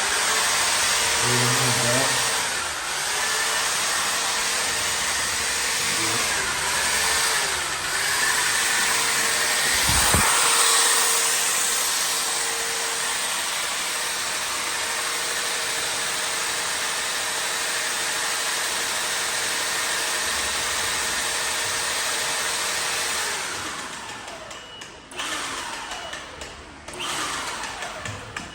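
A motor-driven machine running steadily with a loud hiss and hum, with a short low thump about ten seconds in, then winding down with falling pitch in the last few seconds.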